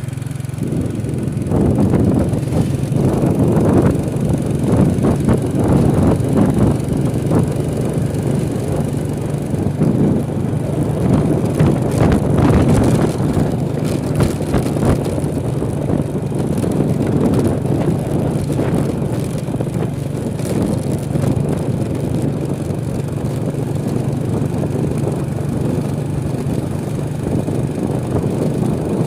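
Motor vehicle engine running steadily, under a dense rumbling noise that swells and eases.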